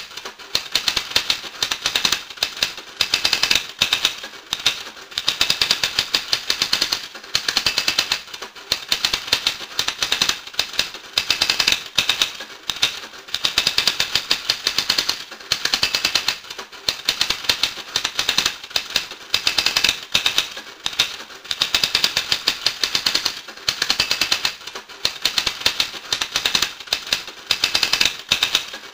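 Rapid mechanical clicking, dense and typewriter-like, in runs of a second or two broken by short dips, repeating throughout.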